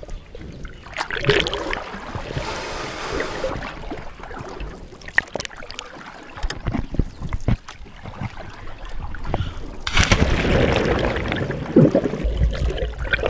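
Sea water splashing and sloshing around a GoPro camera at the surface, with scattered knocks. About ten seconds in, a louder churning rush of water and bubbles as the camera goes under.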